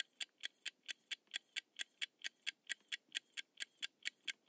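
Countdown timer sound effect: faint, quick, evenly spaced clock-like ticks, about four or five a second.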